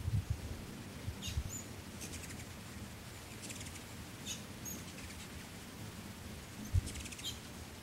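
Ruby-throated hummingbirds giving short, high chip notes and a few brief buzzy chatters, scattered through, over a low rumble. A dull thump comes near the end.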